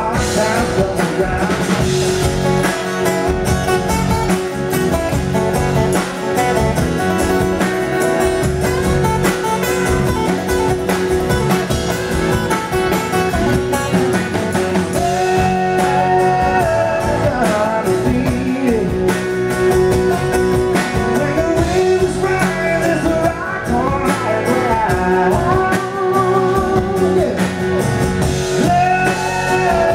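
Live country-rock band playing: acoustic guitars strummed over electric bass and a drum kit, with a man singing lead.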